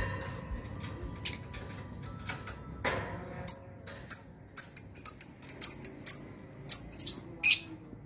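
Lovebird giving a rapid series of short, shrill chirps, about a dozen of them packed into the second half.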